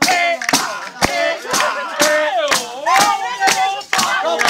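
Southern Italian folk singing to a tammorra: a voice holding long sliding notes over the frame drum, which is struck steadily about twice a second.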